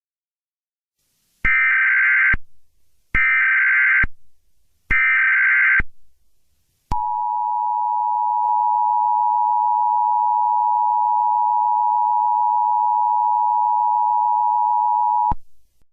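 Emergency Alert System tones: three short bursts of SAME header data, each just under a second, followed by the steady two-tone attention signal. The attention signal holds for about eight seconds and then cuts off suddenly.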